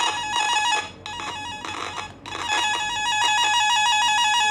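SEW 180 CB tone-tracer amplifier probe's speaker sounding the tone generator's signal, a very loud, rapidly warbling two-pitch tone picked up from a CCTV cable's conductors: the cable end is identified. The tone drops out briefly about a second in and again near two seconds in, then holds steady.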